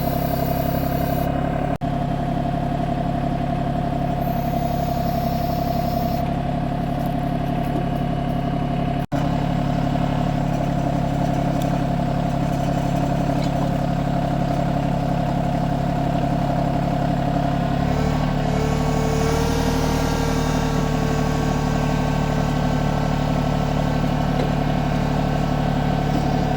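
Branson 2505h compact tractor's diesel engine running steadily. About two-thirds of the way in, the engine note shifts and a steady whine joins it. The sound drops out briefly twice.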